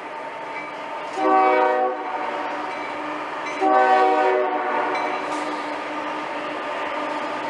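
CSX freight diesel locomotive's air horn sounding twice, a short blast about a second in and a longer one around four seconds that fades out, over the steady rumble of the approaching locomotives.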